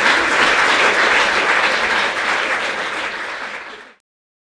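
Audience applauding, easing off a little and then stopping abruptly near the end.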